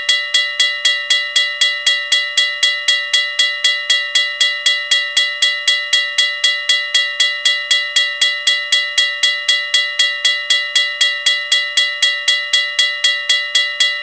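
Railroad crossing bell ringing steadily, a single metal bell struck at an even rate of about three times a second, each stroke ringing on into the next.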